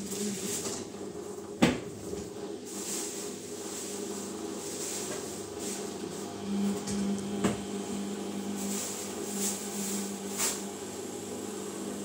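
Samsung front-loading washing machine running mid-cycle before the spin: a steady motor hum as the drum turns, with a few sharp knocks, the loudest about a second and a half in and others past the middle and near the end.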